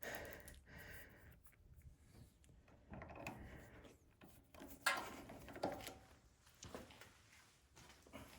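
Faint, scattered clicks and knocks of snowblower parts being handled during reassembly, with long near-silent gaps between them.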